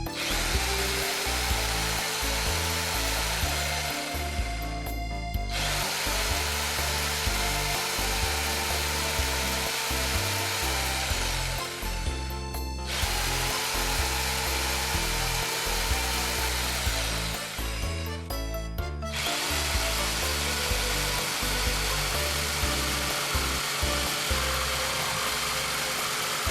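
Electric power tool running in four long runs with brief stops between them, its motor whine rising a little at the start of each run. Background music plays underneath.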